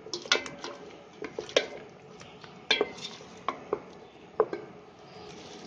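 A spatula stirring thick tomato-and-spice masala in a metal cooking pot, knocking and scraping against the pot's sides and bottom in irregular clinks as the masala fries.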